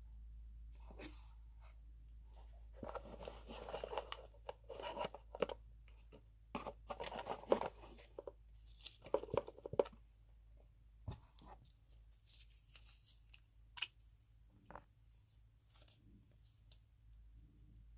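Close-miked ASMR handling sounds right against the microphone: crackling, crunching scratches in dense clusters through the first half, thinning out to scattered sharp clicks and light scratches.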